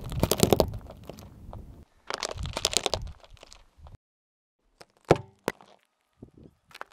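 A car tyre crushing a red plastic toy: two dense runs of cracking and crunching over the first three and a half seconds. After a pause, a few sharp single cracks as the tyre presses down on a small painted figurine.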